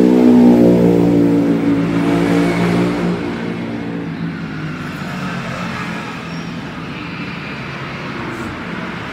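A passing road vehicle's engine, its note slowly falling and fading over the first few seconds, leaving a steady traffic hum.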